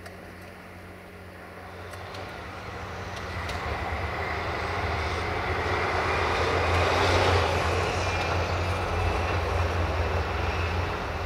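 Concrete mixer truck driving past: its engine and tyre noise grows louder, peaks about two-thirds of the way through, then begins to fade.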